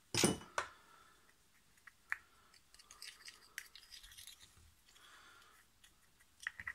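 A thin rod stirring and scraping plastic sanding dust and CA glue around a small plastic shot glass, mixing them into a filler paste, heard as faint scattered scratches and ticks. A sharp clatter comes right at the start.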